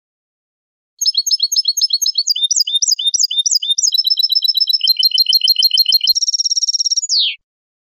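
European goldfinch singing one long Málaga-style song phrase from a tutoring recording used to teach young goldfinches and goldfinch hybrids. Starting about a second in, it runs through quick series of sharp, high repeated notes that switch pattern several times, then a buzzy rapid trill and a falling note, and it cuts off sharply.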